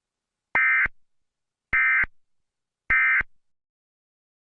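Emergency Alert System end-of-message tones: three short, identical bursts of digital data tones, a little over a second apart, marking the end of the alert.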